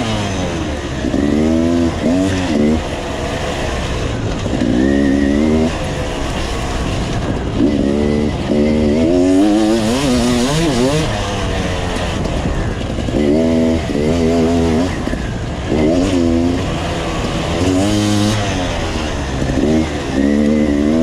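Enduro motorcycle engine being ridden, revving up and falling back over and over as the throttle is worked, in short bursts every few seconds over a steady lower engine note.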